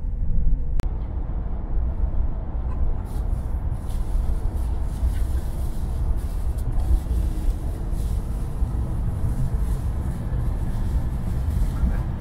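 Car cabin noise while driving: a steady low rumble of engine and tyres on the road. A sharp click comes about a second in, and more hiss joins from about three seconds in.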